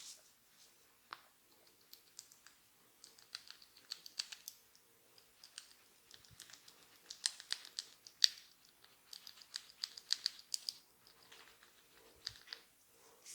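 Fingers scratching through hair and over the scalp close to the microphone: quick, irregular crackly scratches in clusters, the sharpest about two-thirds of the way through.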